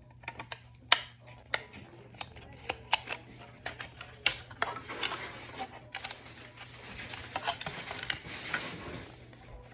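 Plastic armour-kit parts being handled and trimmed by hand: scattered sharp clicks and taps, then a few seconds of rasping scraping and cutting.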